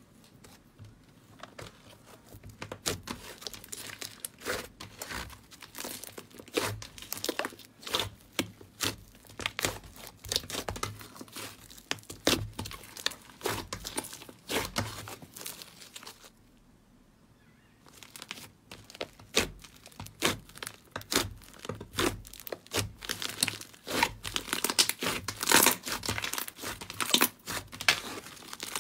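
Slime being squeezed and pressed by hand, giving a dense run of crackling pops and clicks. It stops for about a second and a half midway, then starts again, denser and louder near the end.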